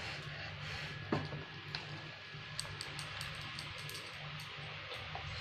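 Cooking water draining from boiled rice through a perforated metal strainer, with a knock about a second in and a string of small ticks and drips through the middle.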